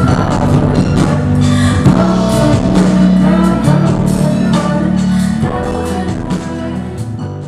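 Live band music: drums, bass and keyboards with voices singing, loud and steady with a regular beat, getting quieter near the end.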